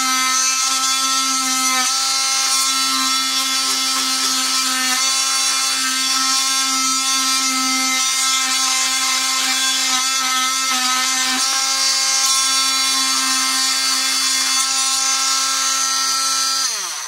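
Cordless oscillating multi-tool running steadily with a loud, even buzz while cutting wood, its pitch dipping slightly a few times. Near the end it is switched off and winds down in pitch to a stop. The tool runs fairly loud.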